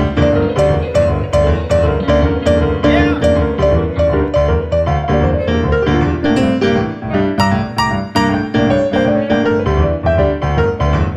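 A band playing an instrumental with keyboard over a steady drum beat.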